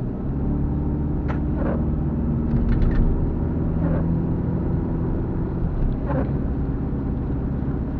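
Car engine and road noise heard from inside the cabin while creeping along slowly in traffic: a steady low drone of several tones, with a few faint short sounds.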